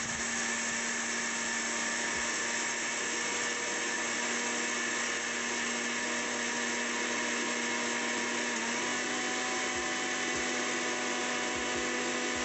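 Butterfly Hero 500 W mixer grinder running steadily on its first speed, grinding half a jar of dry rice: a constant motor whine over the rush of the blades and grain. The pitch steps up slightly about two-thirds of the way in.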